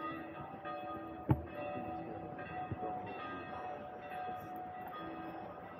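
Church bells ringing, several notes struck over and over so that they ring into one another. A sharp knock comes a little over a second in, and a smaller one near three seconds.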